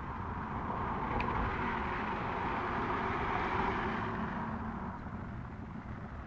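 A vehicle passing on the street below: its road noise swells over a few seconds, peaks, then fades away about five seconds in, over a low background rumble.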